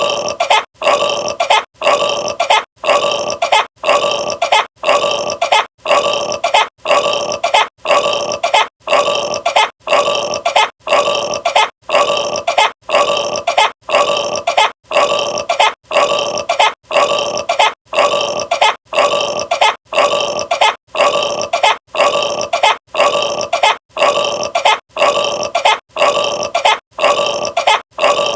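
The same burp repeated over and over at an even pace, a little more than one a second, each one alike, as in a looped recording.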